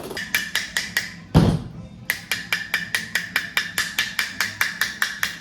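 Rapid, even series of sharp knocks, about five a second, with a single louder, deeper thump about a second and a half in.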